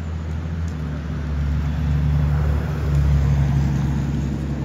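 A motor vehicle's engine passing close by: a low hum that swells to a peak about three seconds in, then eases off.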